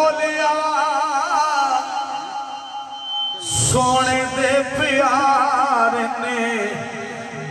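A man singing Sufi kalam into a microphone: two long, ornamented phrases with wavering held notes, broken by a short pause about three and a half seconds in.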